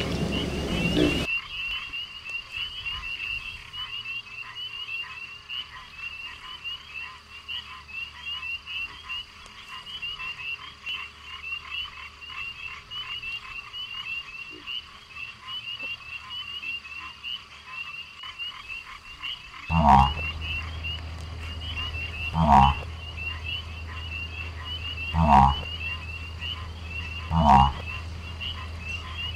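Frog chorus: a fast, steady high-pitched chirping throughout, joined about two-thirds of the way through by four loud, deep croaks a couple of seconds apart.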